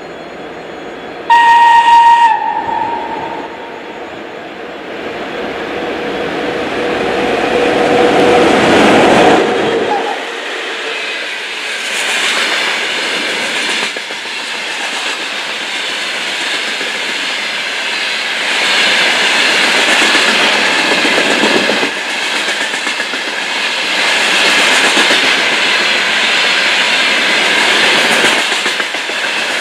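A train gives one short horn blast about a second in, then approaches, growing louder, and runs past with a steady rumble and wheels clattering over the rail joints.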